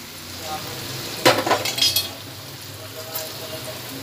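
Ghee sizzling in a kadai as coarsely ground chana dal paste is tipped into it, with a cluster of sharp scrapes and clinks of the spoon and bowl against the pan about a second and a half in, and a fainter one near the end.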